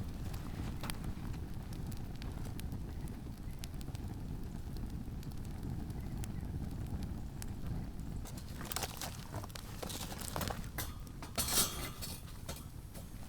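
Someone handling firewood and camp gear: scattered light clicks and knocks over a low steady rumble, getting busier about two-thirds of the way in, with a short rasping burst near the end.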